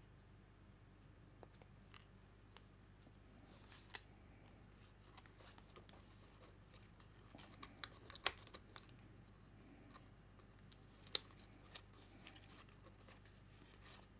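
Paper die-cuts and a card being handled on a craft mat: scattered small clicks, taps and light rustles of card stock, the sharpest about eight seconds in and another about eleven seconds in.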